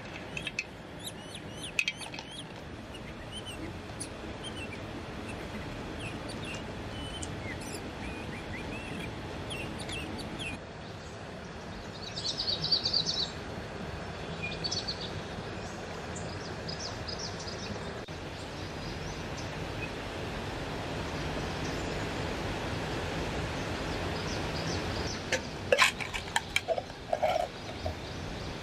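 Steady rush of a flowing forest stream, with birds chirping over it and a brief louder trill about twelve seconds in. A few sharp clicks near the end.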